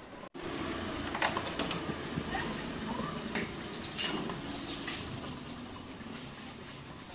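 Metal grille security door being unlatched and swung open, with a few sharp latch clicks and creaks over steady background noise.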